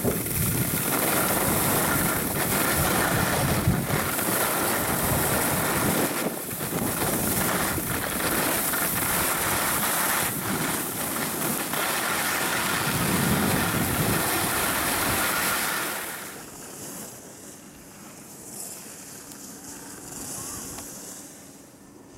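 Wind rushing over the microphone and snow scraping under a rider sliding down a groomed slope. About sixteen seconds in it drops to a much quieter hiss.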